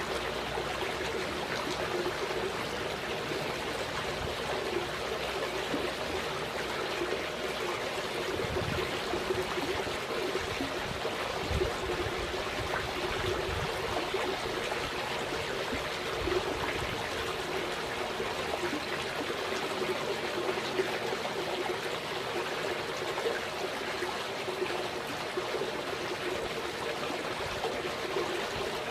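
Water running and trickling steadily, a continuous splashing stream with no break.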